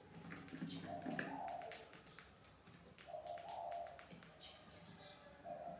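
Faint clicks and taps of mice scrabbling at a clear plastic jar trap, with a short low call repeated three times in the background.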